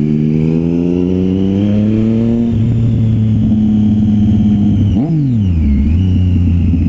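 Motorcycle engine heard from the rider's seat while riding, the engine note rising slowly as it gathers speed and then holding steady. About five seconds in the pitch jumps up and drops quickly before settling again.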